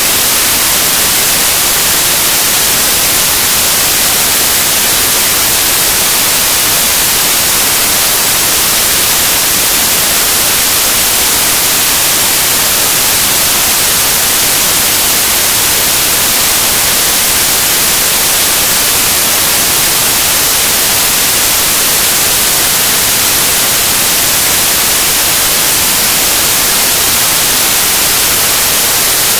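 Loud, steady hiss of static, brightest in the high end, with nothing else heard through it.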